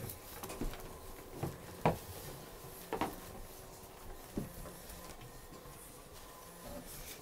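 Bullmastiff puppies at play: scattered light knocks, taps and scuffles of paws and toys on a rug-covered floor, with a few sharper clicks about two and three seconds in.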